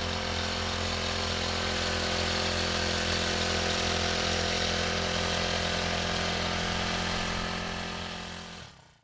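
Honda FG110 mini-tiller's small four-stroke engine running steadily, driving the aerator tines. It fades out near the end.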